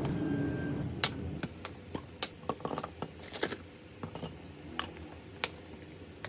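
A rustle that fades about a second in, then scattered light clicks and knocks at uneven intervals as small household items are handled and set down.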